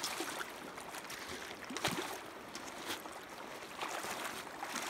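Shallow creek water running over stones, with a few short splashes as a hooked trout thrashes in the shallows and a wading foot stirs the water.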